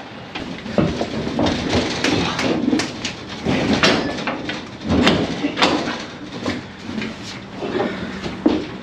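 Cattle moving about in a metal livestock trailer: irregular clattering and clanging of hooves and bodies against the trailer floor and sides, over a steady low hum.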